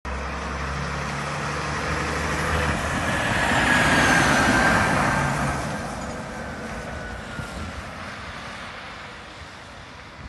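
Renault garbage truck's 11.1-litre diesel engine running as the truck drives past, loudest about four seconds in and then fading as it pulls away. A high whistle drops slightly in pitch as it goes by.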